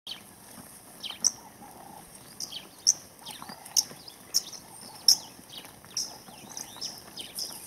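A flock of Caspian plovers giving short, sharp, high-pitched calls, each dropping quickly in pitch. About eight calls come at irregular intervals of half a second to a second, several of them loud, over a faint outdoor background.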